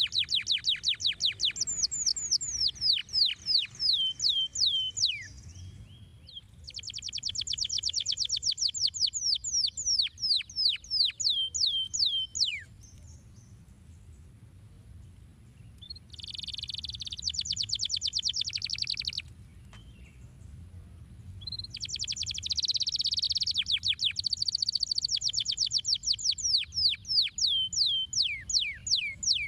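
Domestic canary singing in long phrases of rapidly repeated notes: fast trills and runs of quick down-slurred whistles, with short pauses between the phrases, about four phrases in all.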